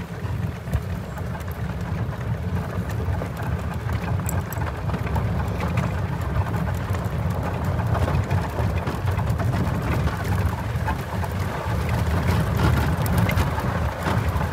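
Open golf cart driving along a dirt and gravel drive: a steady low rumble of rolling tyres and wind buffeting the microphone.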